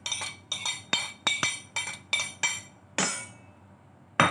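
Quick run of ringing clinks, about four a second and then slowing, as a spoon knocks chopped onions off a ceramic plate into a stainless steel mixing bowl, with a louder clink near the end.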